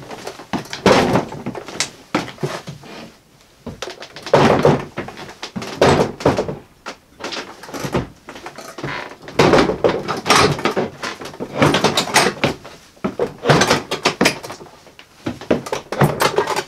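Ryobi Link rolling tool box's wheels knocking against wooden stair treads, one thump per step as it is hauled over the stairs, with boots treading on the steps. The thumps come irregularly, about one every second or two.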